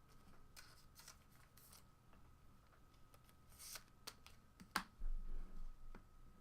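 Trading cards being handled: faint slides and clicks as cards are pulled and flipped, with a low thump about five seconds in.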